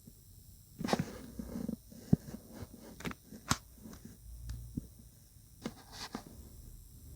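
A dog's brief vocal sound about a second in, followed by scattered sharp clicks and taps.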